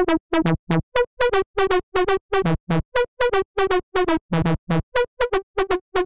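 Saw-wave synth lead in Serum, run through heavy distortion, playing a melody of short staccato notes, about four a second, that jump between a lower and a higher pitch.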